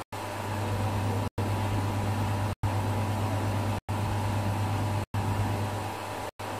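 Steady low hum with hiss, like a fan or other small machine running, broken by brief dead-silent dropouts about every second and a quarter.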